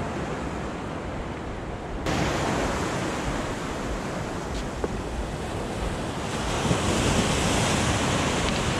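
Sea waves surging and washing around a jetty, a steady rushing with wind buffeting the microphone; it gets abruptly louder and brighter about two seconds in, and louder again near the end.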